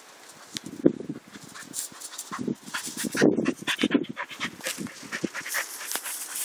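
A dog panting close by, with rustling of long grass from about a second in.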